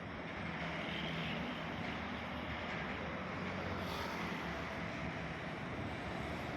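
A steady engine hum under a wash of wind-like outdoor noise.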